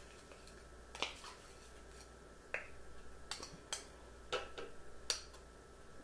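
A spoon tapping and scraping against the rim of a food processor bowl as sticky tahini is worked off it into the bowl: about half a dozen sharp, separate clicks spread out.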